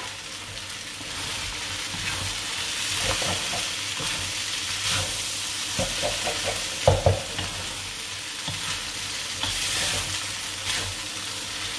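Rice vermicelli stir-frying in a wok with a wooden spatula: a steady sizzle under repeated scraping and tossing strokes, with a couple of louder knocks of the spatula against the wok a little past the middle.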